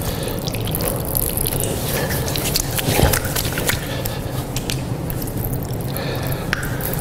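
Water running from a wall tap and splashing over hands and into a basin as the hands are washed and rubbed, with scattered drips and spatters.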